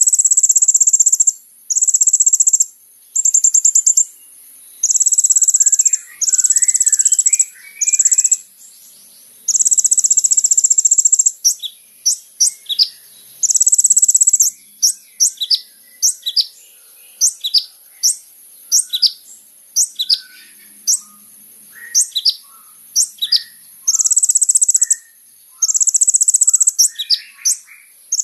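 Kolibri ninja sunbird singing: very high, fast buzzing trills in bursts of about a second, broken by short pauses. From about ten seconds in come rapid sharp, downward-sweeping notes mixed with softer lower chirps, over a faint steady high hiss.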